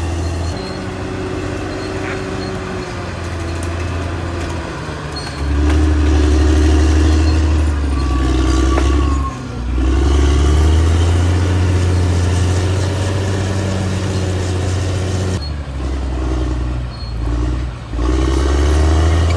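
Diesel engine of a CAT D6R XL bulldozer working under load. It grows louder about five seconds in and dips briefly a couple of times as the load changes.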